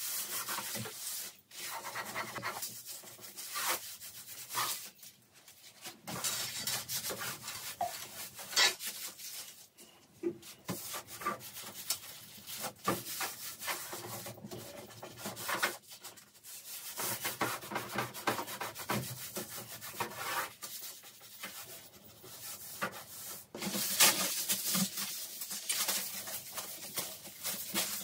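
Toiletry bottles and jars being handled and taken off a bathroom cabinet's glass shelves: irregular rubbing and scraping with frequent light knocks and clinks.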